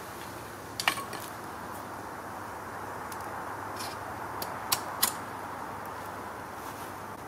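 A few sharp metallic clinks from a camping pot's wire handle and the stick hook as the pot is lifted off a wood fire, over a steady background hiss. One clink about a second in rings briefly, and two more come close together past the middle.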